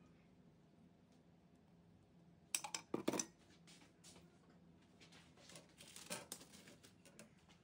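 Kitchen utensils and dishes clattering: a quick run of sharp metal clinks and knocks about two and a half seconds in, then lighter scattered clicks and scrapes.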